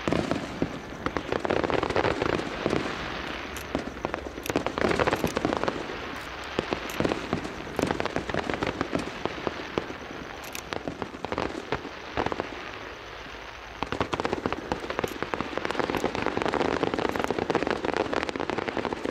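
Fireworks display: a dense, continuous run of rapid pops and cracks with louder bangs scattered through it, easing off briefly about two-thirds of the way in before picking up again.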